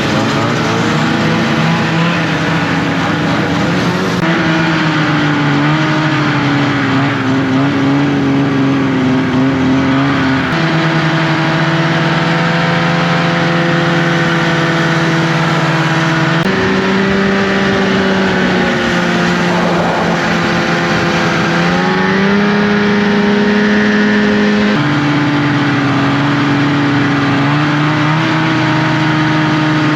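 Snowmobile engine running at riding speed, loud and steady. Its pitch holds for a few seconds at a time, then shifts up or down to a new level several times.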